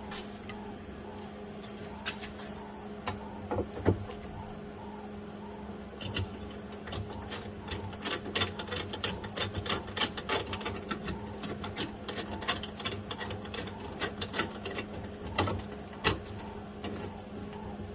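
Scattered clicks and light knocks of small parts and tools being handled while a truck's inside door handle is put back together. A steady low hum runs underneath.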